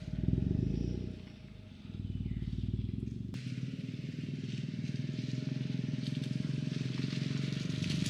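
A car engine running low and steady as the car drives slowly over a dirt track. The sound changes abruptly about three seconds in, and the crunch of tyres on dirt and gravel builds toward the end.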